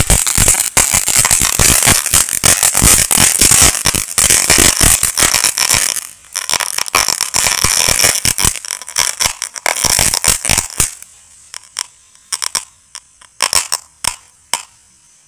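Homemade fountain firecracker, filled with the powder from 100 chatar patar (crackling) crackers, burning: a loud, dense crackle of many rapid pops. The crackle thins out after about six seconds and ends with a few scattered pops as the fountain burns out.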